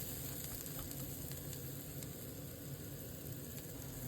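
Food sizzling in a frying pan: a steady low sizzle, with a few faint ticks.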